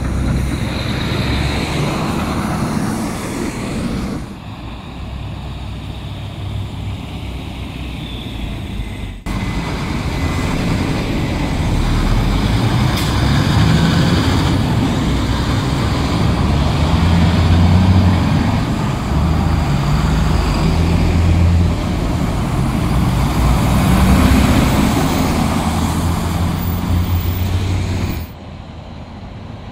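Snow-hauling semi-trucks with dump trailers and heavy dump trucks driving past in city traffic, their diesel engines running with a deep hum that rises and falls as each truck goes by. The overall sound drops suddenly about four seconds in, jumps back up around nine seconds, and drops again near the end.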